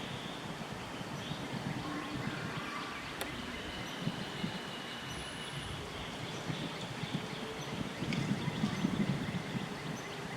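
Outdoor ambience: a steady low rumble that swells near the end, with a few faint high bird calls over it.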